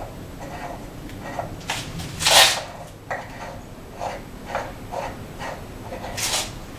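Hand-cranked XY cross-slide table: short metal-on-metal sliding scrapes, about two a second, as the handle is turned, with a louder, longer scrape about two and a half seconds in and another near the end.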